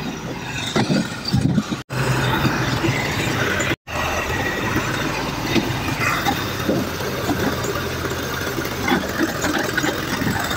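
Tractor engine running under way on a rough dirt track, with the body rattling and clattering. The sound cuts out for an instant twice near the start.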